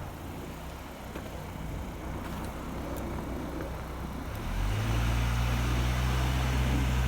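Car engine running low and steady, then about four and a half seconds in it rises sharply to a louder, steady pitch and holds there: the driver is revving to reverse the car out of deep, packed snow.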